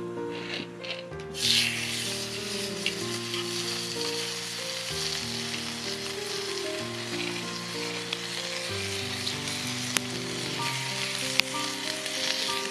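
Food frying in a hot skillet, a steady sizzle that starts suddenly about a second and a half in, with a couple of sharp crackles later on. Background music with sustained notes runs underneath.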